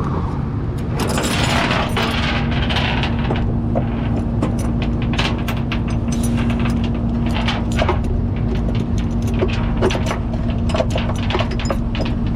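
A vehicle engine idling with a low rumble and a steady hum. From about four seconds in, irregularly spaced light metallic clinks and rattles come over it.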